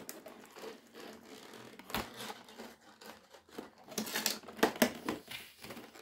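Doll box packaging being handled: rustling and crinkling of cardboard and plastic, with scattered sharp clicks and snaps, most of them about four to five seconds in.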